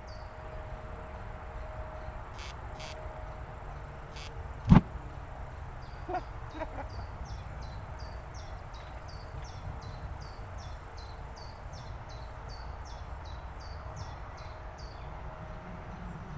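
Outdoor ambience with a low wind rumble and short, high chirping calls repeated about twice a second. A single sharp knock about five seconds in, followed by two faint clicks, from equipment being handled at the engine stand.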